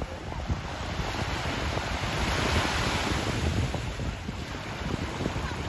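Small sea waves washing in and breaking on the beach, a steady surf hiss that swells and eases, with wind rumbling on the microphone.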